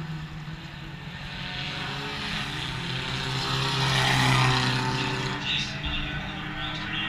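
Eco Stock race car engine going by at speed on a dirt oval: the engine note builds to its loudest about four seconds in as the car passes, then fades, with other cars running in the distance.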